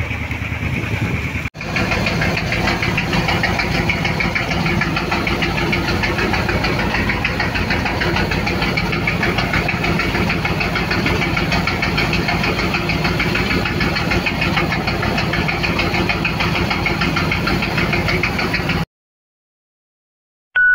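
Engine of a small wooden outrigger fishing boat (bangka) running steadily with a fast, even knocking beat. It cuts off abruptly near the end.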